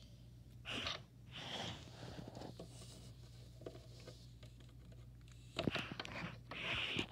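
Faint handling noises from small plastic toy figures and dollhouse furniture being moved by hand: light taps, clicks and short rustles over a low steady hum.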